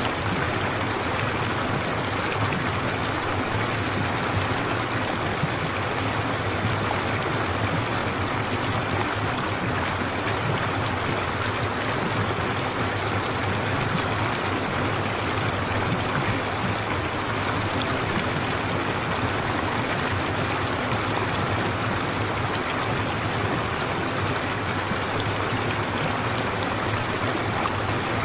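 Steady sound of a flowing stream: an even rush of running water that does not change in level.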